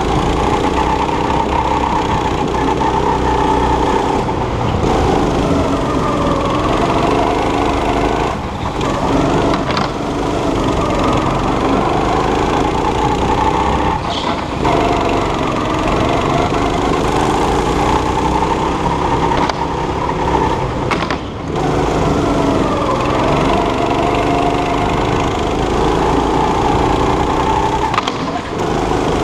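A go-kart's small single-cylinder engine running hard around the track, heard from on board. Its pitch climbs and falls again and again, with a few brief drops where the throttle is lifted.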